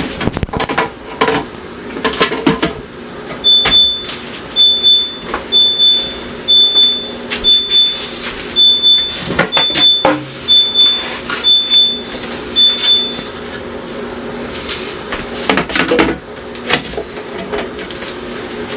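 Refrigerator door-open alarm beeping: about ten short, high beeps a second apart that stop after about ten seconds, among clattering of items being handled in the open fridge, over a steady low hum.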